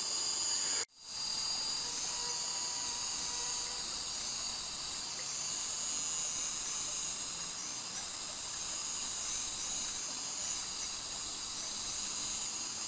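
Steady chorus of tropical forest insects, a dense high-pitched buzzing and trilling with faint repeated chirps. It cuts out completely for a moment about a second in.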